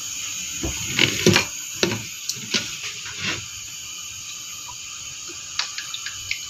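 A few sharp knocks and clatters as a frying pan and oil bottle are handled on a gas stove, over a steady hiss. Then olive oil is poured into the empty pan, with a few light ticks near the end.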